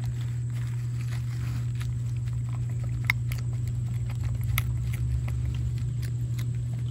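Pig eating vegetable scraps from a plastic tub, munching with scattered sharp clicks and smacks. A steady low hum runs underneath.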